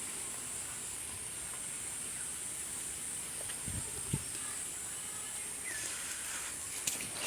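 Outdoor rural ambience: a steady high-pitched hiss, with two short low thumps a little past halfway and a few light clicks near the end.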